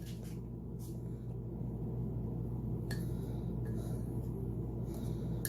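A steady low hum with a few faint light clicks.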